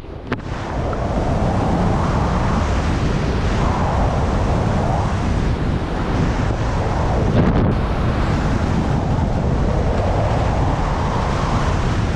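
Wind buffeting an action camera's microphone during fast downhill skiing, with the hiss of skis sliding and carving over chopped-up piste snow that swells every few seconds with the turns. The sound dips briefly at the very start, then builds back up within about a second.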